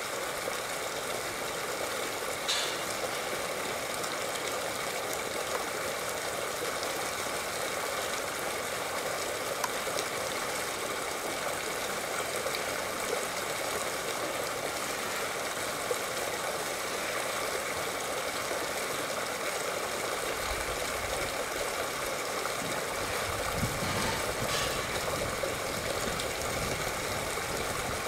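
Steady rush of flowing water, with a low rumble joining in during the last third.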